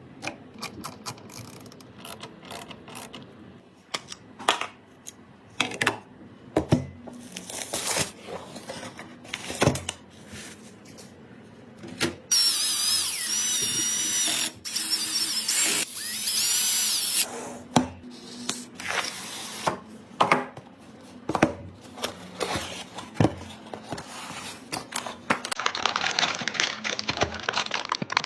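Plastic and metal PC parts clicking and tapping as they are handled and fitted. About halfway through, a small electric screwdriver runs for about five seconds with a wavering whine. Near the end comes a dense crackling rustle.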